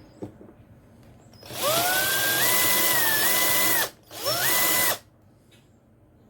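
Cordless drill run in two bursts, the motor whine rising as it spins up each time; the first lasts about two seconds and the second is short. It is drilling out the rivet holding a die-cast toy car's base together.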